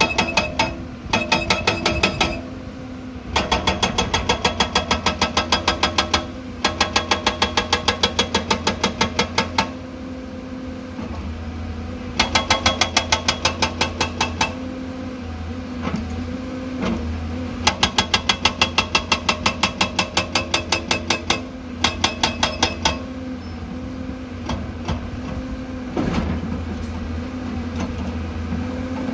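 Excavator-mounted hydraulic breaker hammering rock in bursts of one to three seconds, about seven ringing metallic blows a second, with pauses between bursts. The excavator's engine runs steadily underneath.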